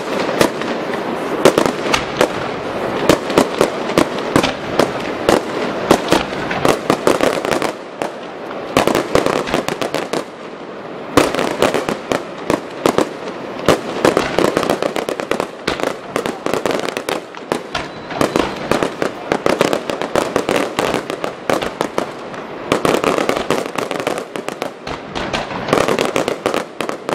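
Fireworks display: a rapid, continuous stream of aerial shell bangs and crackling bursts, easing briefly about ten seconds in before building again.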